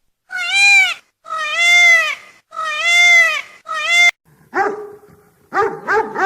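Four drawn-out animal calls, each rising then falling in pitch, followed about four seconds in by a dog barking in short, lower barks.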